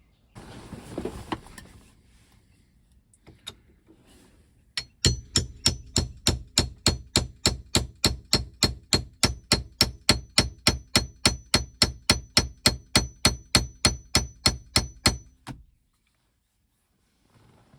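Hammer striking metal in a steady run of about forty blows, roughly four a second, each with a short metallic ring, after a brief rustle near the start.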